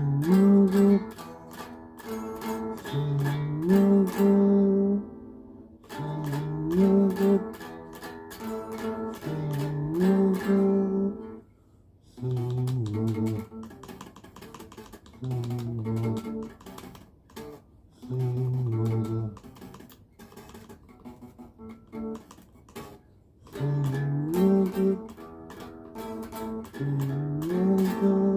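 Music: a plucked guitar playing a repeating melodic phrase in which several notes slide upward in pitch. A lower-pitched passage runs through the middle before the opening phrase returns near the end.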